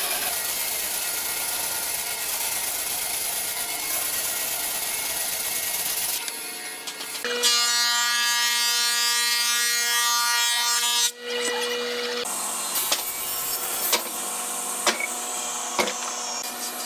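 Woodworking machines cutting hardwood in quick succession. First a band saw resaws a thick plank with a steady hiss. Around the middle a thickness planer runs with a steady hum and whine, and the last part is a table saw cutting a board, with scattered sharp knocks.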